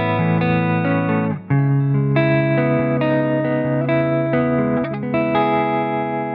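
Electric guitar playing arpeggiated chords through a JAM Pedals Harmonious Monk harmonic tremolo pedal. The sound drops out briefly about a second and a half in at a chord change, and the last chord is left ringing and fading near the end.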